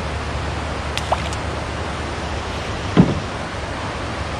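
Steady rush of water flowing below a dam, with a few faint clicks and one short knock about three seconds in.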